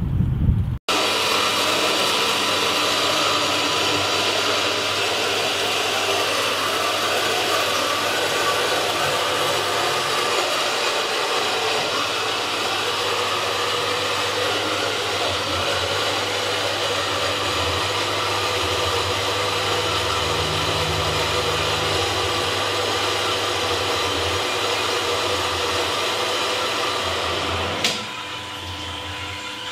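Loud, steady whirring of a motor-driven machine with a constant hum through it. Near the end it drops abruptly to a quieter steady hum.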